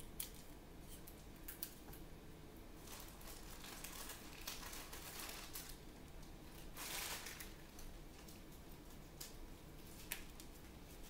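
Faint sounds of tape and wrapping being handled: crinkling, scattered light clicks, and a longer tearing rasp about seven seconds in.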